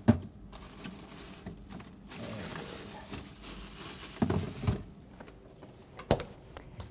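Someone rummaging in an open refrigerator: packaging rustling and items knocking against the shelves, then the refrigerator door shutting, with a sharp click about six seconds in.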